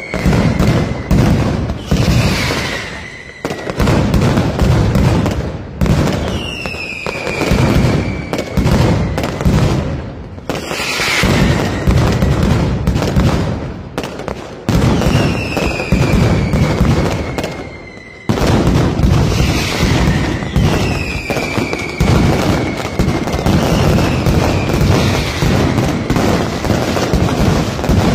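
Night mascletà: a dense, continuous barrage of firecrackers cracking and banging at ground level. A falling whistle from whistling fireworks rises above the din every few seconds.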